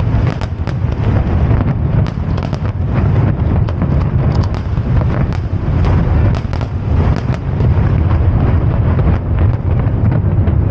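Fireworks display: many aerial shells bursting in quick succession, a rapid run of bangs and crackles over a continuous low rumble.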